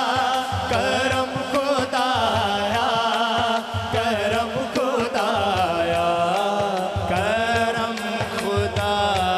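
Men singing a devotional hamd in a drawn-out, wavering melody, accompanied by daf frame drums beating a steady rhythm.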